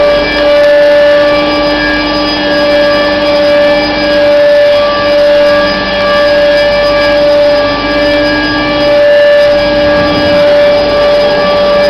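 Pipe elbow-making machine running with a loud, steady whine of several fixed tones that swells and eases in loudness every second or so.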